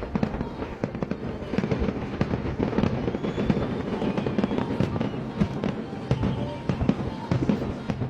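Fireworks going off in rapid, irregular succession: a continuous barrage of bangs and crackles, many per second.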